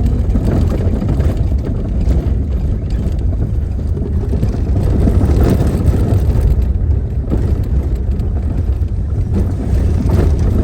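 A car driving along a highway at road speed: a steady, loud, low rumble of tyres and engine.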